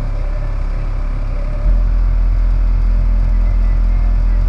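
DD Audio 12-inch subwoofers in a truck's car audio system playing bass-boosted music: a loud, deep, sustained bass note that steps up louder about a second and a half in.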